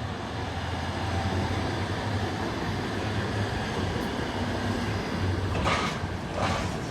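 Steady low rumble of a large vehicle running close by in street traffic, with two short bursts of hiss near the end.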